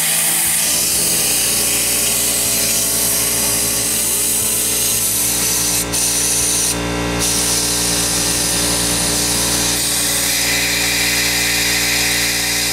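Compressed-air blow gun hissing steadily as it blasts air through a Motobecane AV7 moped engine's crankcase to clear out gasoline left inside. The blast breaks off briefly twice, about six and seven seconds in.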